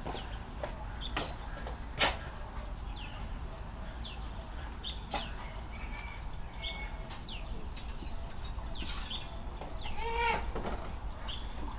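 Birds chirping in short, falling notes throughout, with one louder chicken call about ten seconds in. A couple of sharp clicks are heard near the start.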